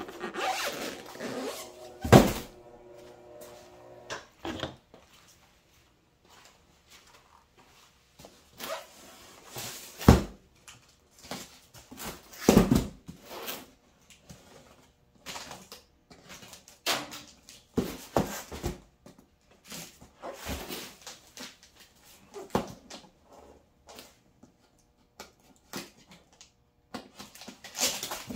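Cardboard boxes being handled and set down on a concrete floor: scattered knocks and thuds with rustling and scraping of cardboard, the loudest thuds about two, ten and twelve seconds in.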